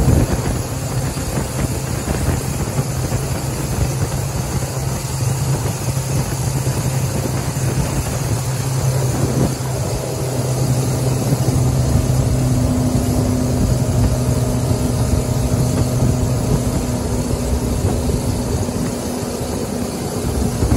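Jet boat's Ford/Kodiak 2.4-litre inline-four inboard engine driving a Hamilton 751 jet unit, running steadily at speed under a haze of water and wind noise. The engine note changes about ten seconds in.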